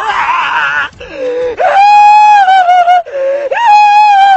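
A man wailing loudly in exaggerated mock crying: a wavering sob, then two long drawn-out high wails, the second starting about three and a half seconds in.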